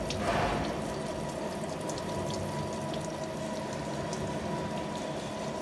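Gear-cutting machine running steadily as it cuts the teeth of a large spur gear: a continuous mechanical hum with a faint steady tone and light, irregular clicking.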